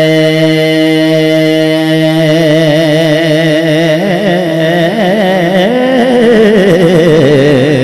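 Man singing a Punjabi naat through a loud PA system: a long held note, then a wavering, ornamented vibrato line that climbs to a peak about two-thirds of the way through and falls away.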